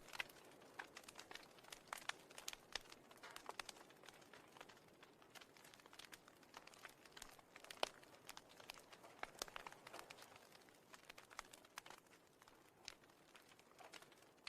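Near silence with faint, irregular clicks and crackles scattered throughout.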